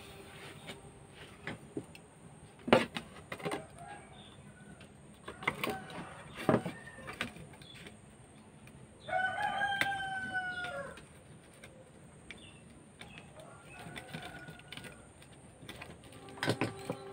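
A rooster crows once, a pitched call of about two seconds near the middle. A few sharp knocks and clicks come before it, the loudest early on; there is no sawing.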